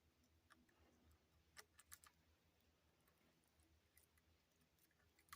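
Near silence, with a few faint, short clicks about one and a half and two seconds in.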